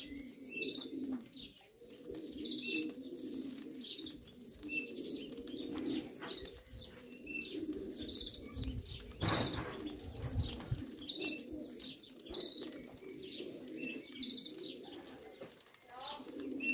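Racing pigeons cooing continuously in a low murmur, with short higher chirps scattered throughout. A brief, louder rustling burst comes about nine seconds in.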